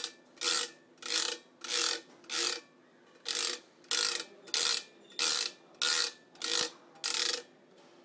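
A stringing awl dragged again and again across the strings of a freshly strung badminton racket to straighten and even out their spacing. It makes a dozen or so rasping strokes, about one every 0.6 seconds, each with a faint low ringing of the strings, and stops shortly before the end.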